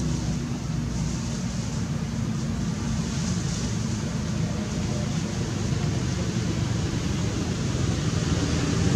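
Steady low rumble of a running engine, growing a little louder near the end.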